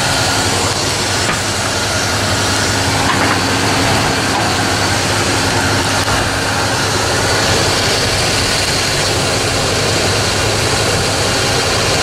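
Dodge Ram 1500 pickup engine idling steadily with the air conditioning on max and the A/C compressor turning: an even hum with a faint steady whine over it.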